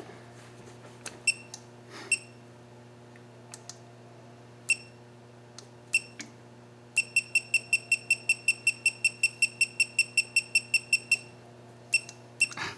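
Digital torque tool beeping as its buttons are pressed to set the target torque. Single beeps, then a fast run of about five beeps a second for about four seconds while a button is held, then two more beeps, over a steady low hum.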